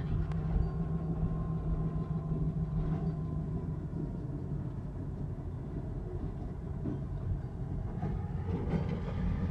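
Low, steady vehicle noise heard from inside a moving car's cabin, with a steady low hum for the first four seconds or so, then a more even low noise.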